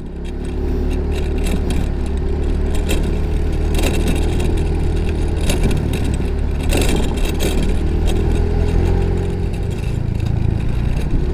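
Yamaha Mio i 125 scooter under way, its engine running steadily after building up over the first second.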